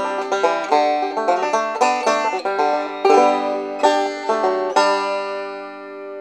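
Resonator banjo fingerpicked in a quick run of notes, ending on a final chord about five seconds in that rings out and fades. The banjo's pot is built to replicate the sound of a 1933 no-hole banjo.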